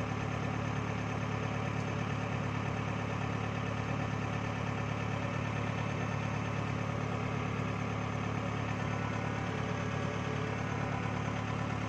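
Rice combine harvester's engine running steadily, heard close up from the operator's seat, with an even low hum.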